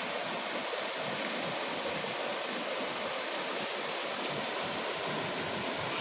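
Stream water rushing steadily over a low rocky cascade, an even, unbroken splashing rush.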